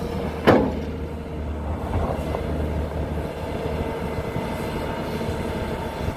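Heavy diesel machinery running steadily, with one loud metallic clank about half a second in and a smaller knock about two seconds in.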